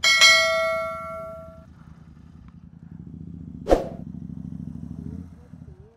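A bell-like ding rings out at the start and fades over about a second and a half; it matches the animated subscribe-button overlay. Under it, a Royal Enfield Continental GT 650's parallel-twin engine idles with a low, even rumble, with one sharp clack near the middle, and the engine cuts off near the end.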